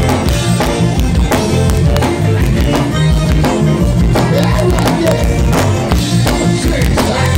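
Live band music: a Cajun button accordion playing over electric guitar and a drum kit keeping a steady dance beat.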